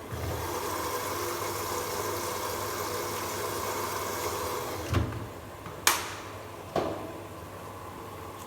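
Beko washing machine in a towel wash: a steady running noise starts abruptly and stops about five seconds in with a low thud, followed by two sharp knocks a second apart over a quieter background hum.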